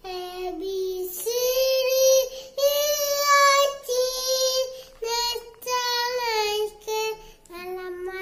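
A young boy singing a nursery rhyme solo, holding long, steady notes in short phrases with brief breaks between them.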